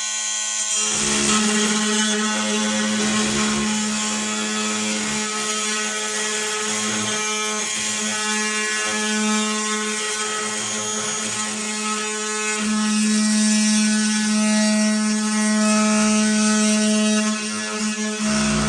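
Power tool running steadily, cutting through ceramic shower wall tile with a high grinding whine. The pitch holds nearly level and the cut gets louder about two-thirds of the way through.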